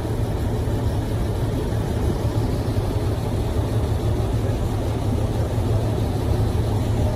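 Diesel tanker truck engine idling steadily, a constant low hum.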